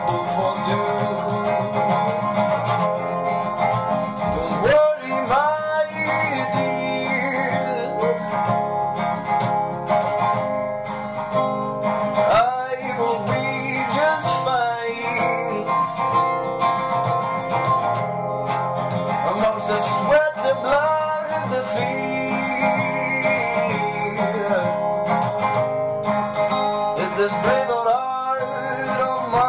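Acoustic guitar played steadily, with a man's voice singing over it in places.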